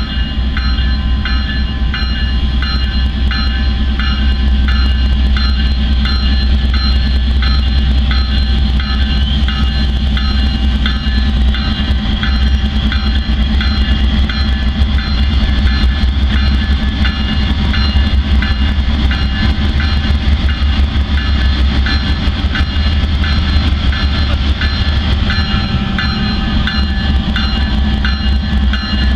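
Norfolk Southern freight train's diesel locomotives running with a steady low rumble, over steady high tones and a bell-like ringing that repeats about twice a second.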